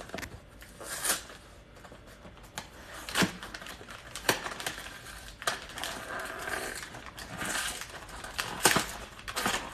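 Groceries being handled and put away by hand: packaging crinkling, with a scattering of sharp knocks and clicks as items are set down.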